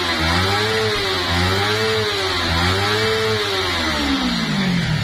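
Kawasaki Ninja 250R's carbureted parallel-twin engine being revved by hand at the throttle, rising and falling about three times before dropping back toward idle near the end.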